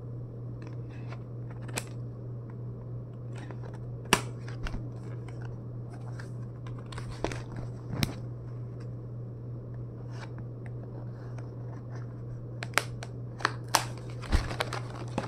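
Scissors snipping into a cardboard package: scattered sharp cuts, then several in quick succession near the end, over a steady low hum.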